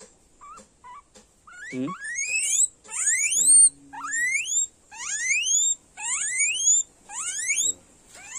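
A scabies-infected guinea pig squealing in distress as it is held and turned over: a run of six or seven high, rising squeals, about one a second, starting about a second and a half in.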